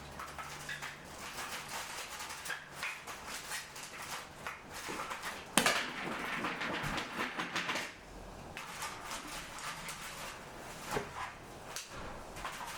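Irregular knocks and clatter of loom parts being handled, with one sharp knock about five and a half seconds in followed by a couple of seconds of rustling or scraping.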